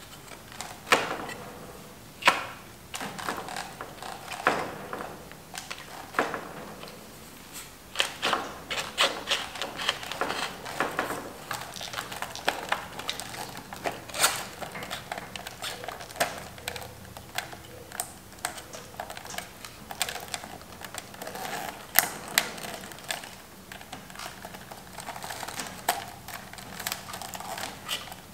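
Irregular metallic clicks, clinks and light rattles from hands and tools working the headlight bucket and fork-top hardware of a vintage Honda CB750. Runs of rapid clicking come about eight to twelve seconds in and again around twenty-two seconds.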